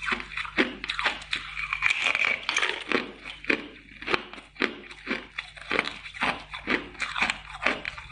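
A chunk of ice being bitten and crunched between the teeth: a steady run of crisp crunches, about two a second.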